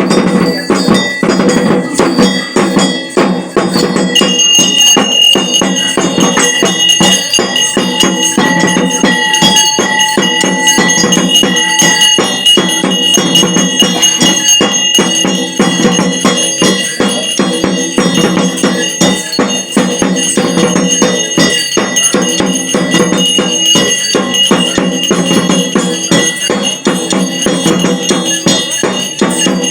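Ritual music of fast, driving drum strikes with metal bells ringing continuously over them.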